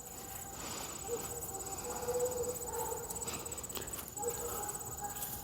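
Crickets trilling steadily, a high, rapidly pulsing note that does not stop.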